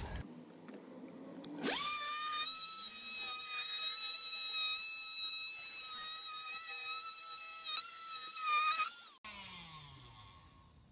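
Oscillating multi-tool cutting through a wooden door jamb: a steady high-pitched whine that starts about two seconds in and cuts off sharply near the end.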